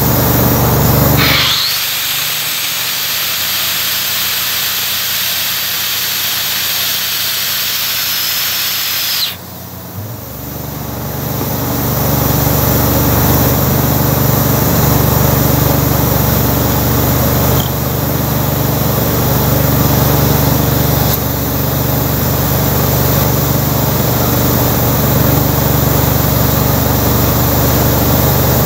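Chicago Pneumatic CP69 pneumatic rock drill working in granite, with an air compressor's engine running steadily behind it. From about two seconds in, compressed air hisses for roughly eight seconds. The drill then starts up again about ten seconds in and keeps running.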